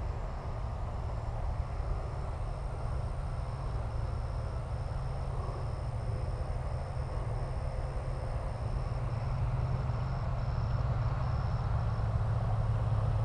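Open-field ambience: a steady low rumble that grows a little louder toward the end, with an insect chirping in an even pulse, about two a second, over a thin steady high whine.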